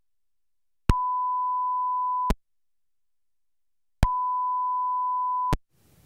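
A steady 1 kHz test tone cuts in and out twice as the Mackie Big Knob Passive monitor controller's monitor/output select is toggled. Each time it switches there is a sharp pop, from the passive switch contacts making and breaking in the signal path. This is normal for this kind of passive switching, not a fault.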